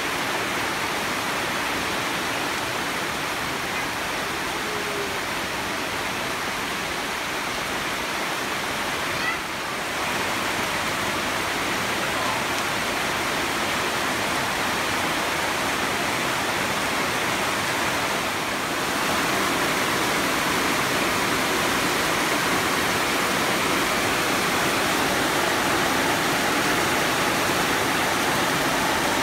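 Heavy rain falling steadily on trees and foliage, an even hiss that grows a little louder about two-thirds of the way through.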